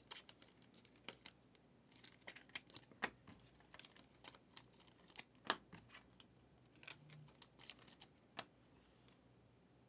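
Faint, irregular soft clicks and ticks of trading cards being flipped through by hand, stopping near the end.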